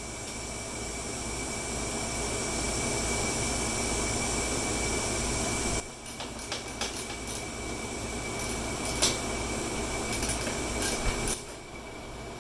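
A steady rushing background noise cuts off abruptly about six seconds in. It is followed by a run of irregular light metallic clicks and ticks as a nut and washer are fitted onto a bolt on the tractor's steel frame and turned with a ratchet wrench.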